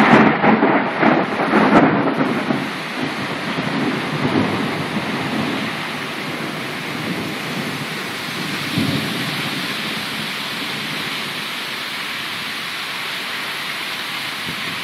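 A loud clap of thunder right at the start, rumbling and fading over about three seconds, with a couple of fainter rumbles later. Under it, a heavy downpour hisses steadily.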